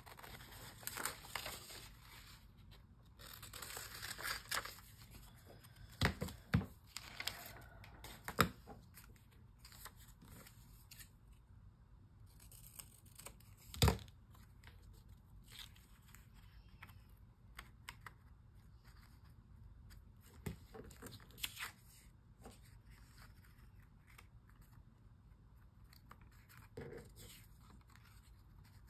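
Paper being handled and torn in several short stretches of rustling, with a few sharp knocks in between, the loudest about 14 seconds in.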